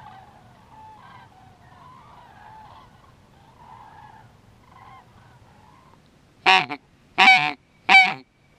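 Geese honking in the distance, then three loud, close honks about a second apart near the end.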